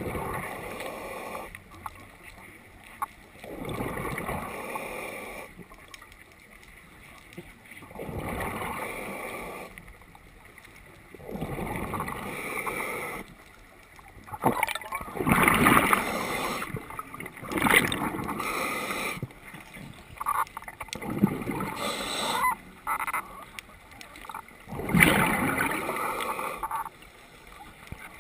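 Scuba diver breathing underwater through a regulator: hissing inhales alternating with gurgling, bubbling exhales, one breath every few seconds, the bubbling loudest in the second half.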